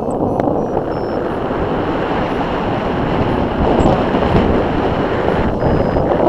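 Steady rush of wind noise on the microphone of a camera carried by a paraglider pilot in flight, from the airflow past the rig.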